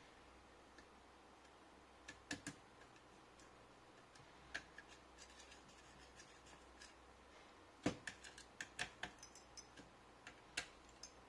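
Faint, scattered clicks and taps of small laptop parts being handled and fitted during reassembly, with a louder knock about eight seconds in followed by a quick run of clicks.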